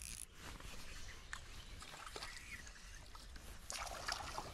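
Shimano Soare XR 2000HG spinning reel being cranked with a faint mechanical clicking as a hooked white bass is reeled in, the fish splashing at the surface about four seconds in.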